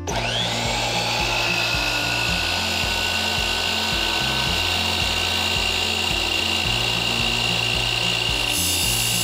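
DeWalt sliding compound miter saw spinning up with a rising whine, then running steadily at full speed as its blade is brought down through a thin hollow metal rod.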